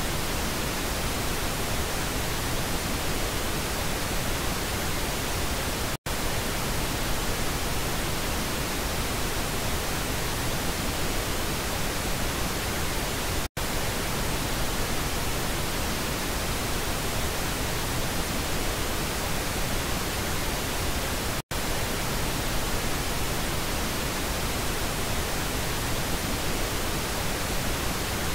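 Pink noise test signal: a steady, even hiss across all pitches. It cuts out for an instant three times, about every seven to eight seconds.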